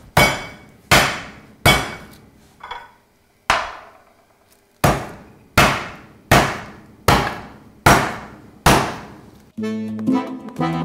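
Meat cleaver slapping down on meat in a small plastic bag on a cutting board, pounding it out flat: about ten heavy strikes, roughly one every three-quarters of a second, with a short pause partway through. Music comes in near the end.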